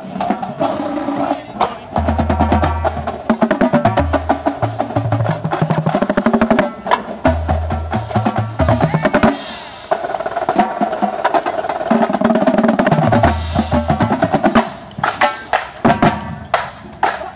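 A line of tuned Mapex marching bass drums playing a split exercise with mallets: rapid strokes are passed between the drums so that the low notes step up and down in pitch, mixed with runs and unison hits, with a short lull about halfway through.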